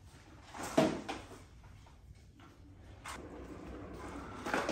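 A few knocks and thumps, the loudest about a second in, as an upright carpet-cleaning machine is got out of a closet and wheeled across the floor.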